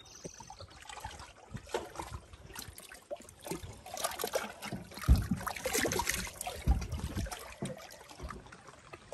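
Small waves lapping and splashing against a rocky shore and a moored canoe, with sandals scuffing over rock and two dull thumps about five and nearly seven seconds in.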